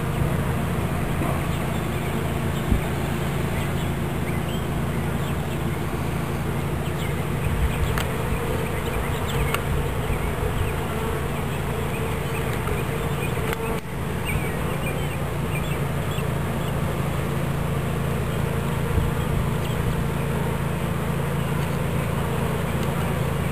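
Swarm of honey bees buzzing, a steady dense hum with a few faint ticks and knocks.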